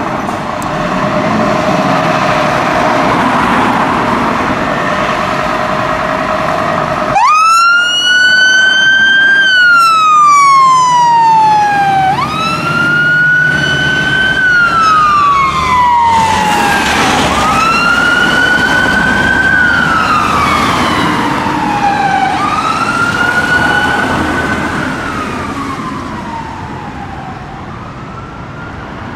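Scania P280 fire engine's diesel engine running as it pulls out, then about seven seconds in its siren starts a wail: each sweep rises quickly and falls slowly, about every five seconds, growing fainter near the end as the appliance drives away.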